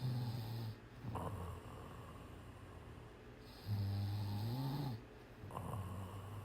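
A cat snoring in a steady breathing rhythm, low-pitched. Twice, a longer snore is followed about half a second later by a shorter one.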